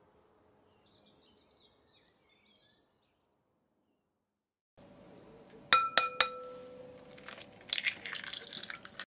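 An egg knocked three times in quick succession on the rim of a glass mixing bowl, the glass ringing after each knock, then the eggshell crackling as it is pulled apart by hand.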